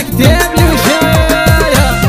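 Instrumental break of a live band playing upbeat North African dance music: a lead melody holds a long, gliding note over a steady beat of about four low, falling thumps a second, with bass guitar and keyboard.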